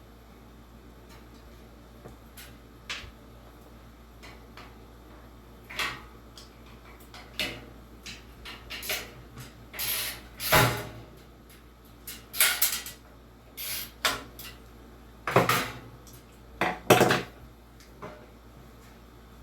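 Irregular metallic clinks and clatters of hand tools and bolts against a box fan's metal housing as the bolts holding its motor are undone. They are sparse at first and come thick and loud from about ten seconds in.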